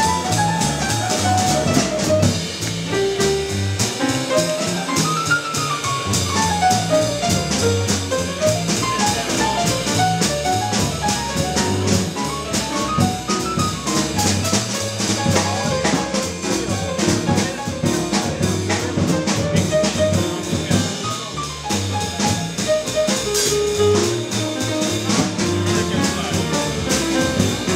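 Jazz piano and drum kit improvising together: fast single-note piano runs that climb and fall, over busy drumming with steady cymbal strokes.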